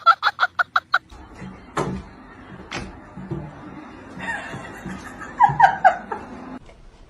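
A person laughing in a quick run of pitched bursts, about eight a second, that stops about a second in. Two sharp clicks and a few short falling calls follow more faintly.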